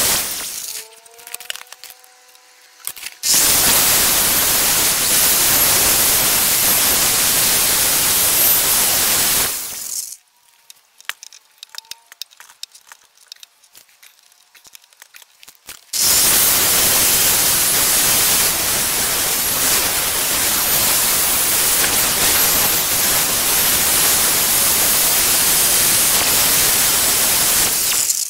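Makita corded power drill running at full speed with a rotary attachment grinding into the wood of a staff, a loud harsh grinding noise. It stops within the first second, starts again about three seconds in, stops about ten seconds in with light handling clicks at the vise, and starts again about sixteen seconds in.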